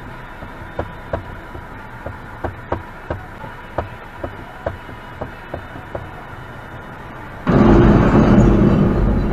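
A semi-trailer's box striking and scraping along the underside of a low steel railway bridge: a sudden loud crash about seven and a half seconds in that carries on as a sustained grinding scrape. Before it, a quiet hum with faint, irregular ticking.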